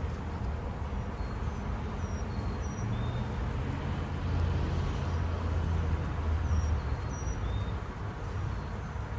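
A mass of honeybees buzzing around an opened hive over a low, uneven rumble, with short high chirps now and then.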